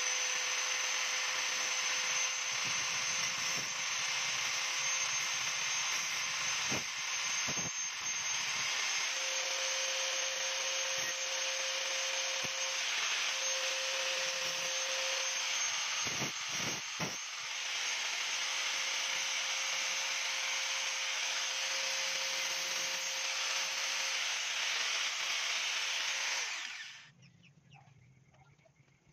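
Handheld electric angle grinder running with a steady whine, its disc grinding the tip of a steel umbrella rib flat to shape a shoe-sewing needle. Near the end it is switched off and winds down quickly.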